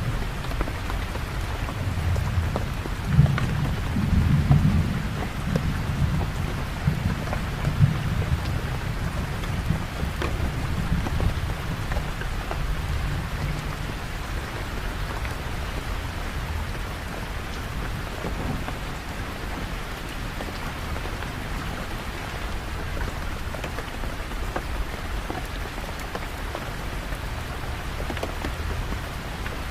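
Steady rain, with a low rumble of thunder rolling through in the first half and then dying away, leaving the even hiss of the rain.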